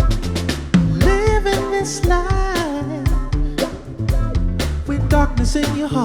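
Live soul/R&B band playing: a drum kit keeping a steady groove over electric bass and keyboards, with a melody line that slides between notes about a second in.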